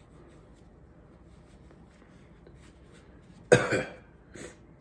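A man coughs once, sharply and loudly, about three and a half seconds in, then gives a shorter, fainter cough. He is coughing from the burn of a super-hot chili snack.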